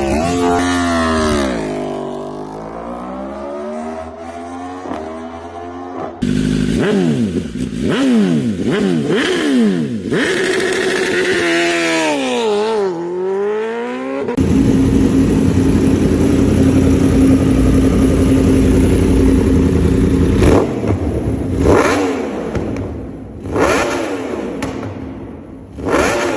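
Sport-bike engines through aftermarket exhausts, in several cut-together clips: one falls in pitch as it slows or passes, another is revved up and down repeatedly, and a third runs steadily with a few short, sharp revs near the end.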